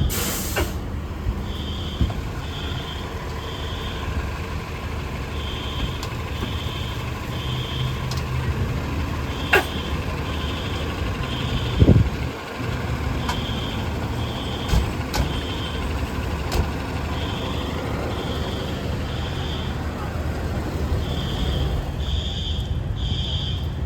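Fire alarm sounding the temporal-three evacuation pattern: three beeps about half a second apart, then a pause, repeating. Under it runs the steady rumble of a fire engine's idling diesel, with one loud low thump about halfway.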